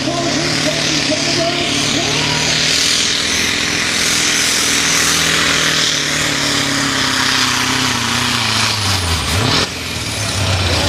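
Diesel engine of a Scania pulling truck at full power, dragging the weight sled, a heavy steady roar with hiss from the exhaust and turbo. About eight seconds in the revs fall away as the truck runs out of pull and comes to a halt.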